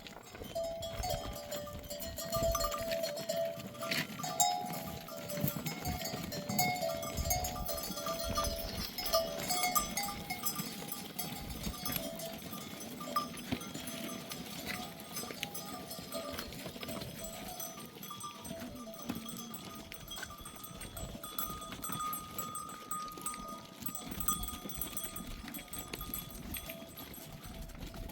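A flock of sheep with bells on, the bells clinking and ringing irregularly as the animals move, mixed with bleating. The flock is busier and louder in the first half.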